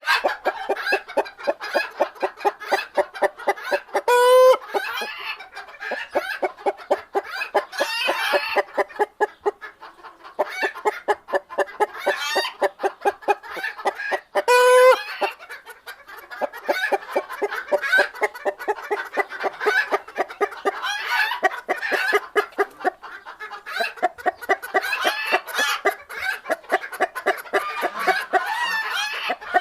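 Chickens clucking in rapid, steady runs of short clucks. Two louder, drawn-out higher calls break through, one about four seconds in and one about fifteen seconds in.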